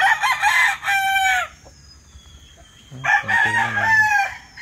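Gamecock roosters crowing: two long, loud crows, the second coming about three seconds after the first, each ending in a falling drawn-out note.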